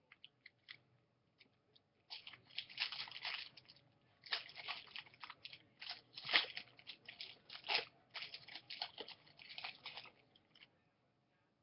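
A foil trading-card pack wrapper being torn open and crinkled, in three spells of crackling handling noise.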